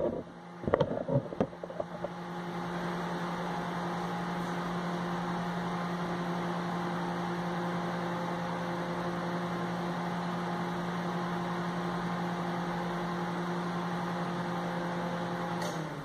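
Whirlpool microwave oven running with its cover off, heating water: a steady low hum with a rushing cooling-fan noise, after a few knocks at the start. It stops just before the end. The oven is working again after its blown thermal cutoffs were replaced.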